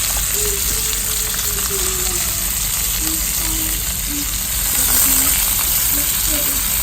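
Butter-basted chicken sizzling steadily on a hot rock as it cooks.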